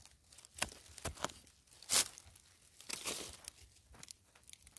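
A long metal blade digging and scraping into dry, crumbly soil, followed by a gloved hand scraping loose earth aside: a run of short crunchy scrapes and strikes, the loudest about two seconds in.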